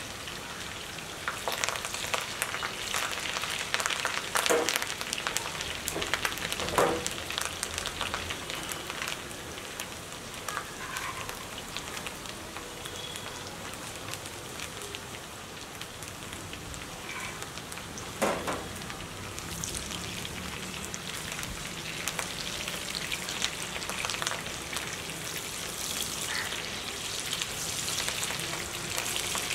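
Food sizzling in hot oil in a pan, a steady dense crackle, with a few louder knocks or scrapes of a utensil against the pan.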